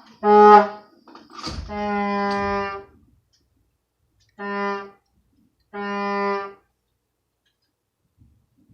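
A horn blown in four blasts of one steady note: a short first blast, a longer one of just over a second, then two shorter blasts.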